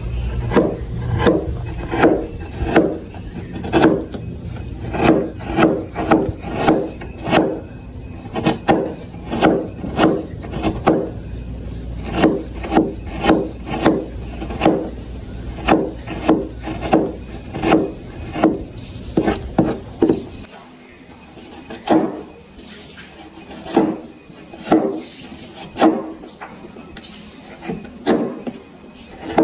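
Repeated scraping strokes of a hand tool cutting into wood, about one to two strokes a second, each a short rasping rub. The strokes come more sparsely in the last third, where a low hum under them stops.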